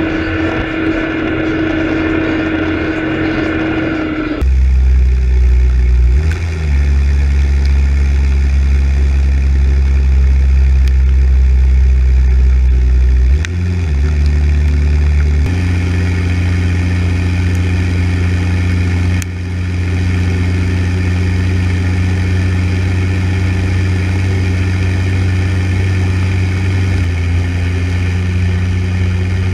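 Deutz-Fahr tractor's diesel engine running steadily while driving. The engine note changes abruptly about four seconds in and again midway. The pitch dips and recovers briefly twice.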